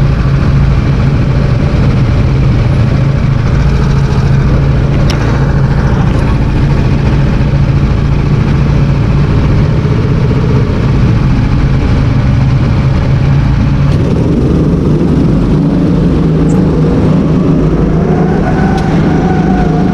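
Go-kart engines running on the starting grid, a steady loud buzz. About fourteen seconds in the sound changes, and near the end the engine note rises as the karts accelerate away from the start.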